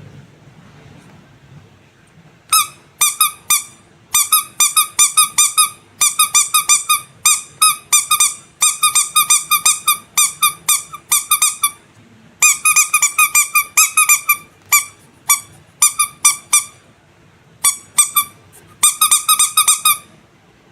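Squeaky rubber animal toys squeezed in quick runs of short, high squeaks, several a second, each holding one pitch and dipping at its tail. The runs start about two and a half seconds in and come in bursts with brief pauses between.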